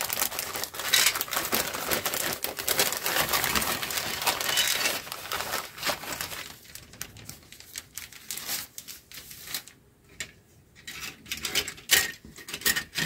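Clear plastic bag crinkling and rustling as it is pulled open and the kit's plastic parts sprues are slid out. Over the second half the crinkling gives way to sparser light clicks and taps of the plastic sprues being handled.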